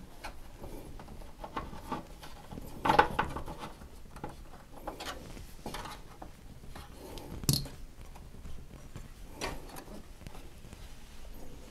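Hands handling PC case and graphics-card mounting hardware: scattered small clicks, taps and rubbing, with a louder knock about three seconds in and a sharp click about halfway through.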